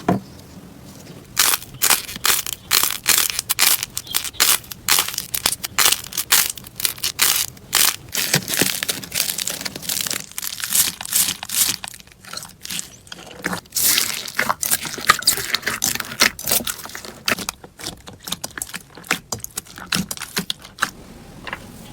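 Slime being squeezed and pressed by hand, giving dense runs of crunchy crackles and sharp pops that start about a second and a half in and come and go in quick clusters.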